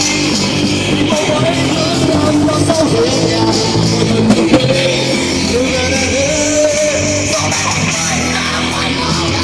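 Live rock band playing loudly: electric guitars and drums with a vocalist singing a wavering melody over them.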